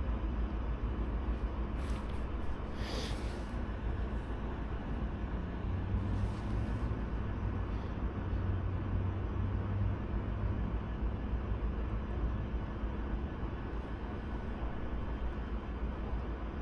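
Boat motor running steadily on the water, with a low even rumble and a brief louder hiss about three seconds in.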